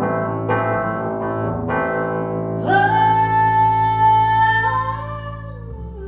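Live solo keyboard and vocal music. Repeated keyboard chords are struck, then about two and a half seconds in a woman's voice enters on one long held note over sustained chords, sliding down in pitch near the end.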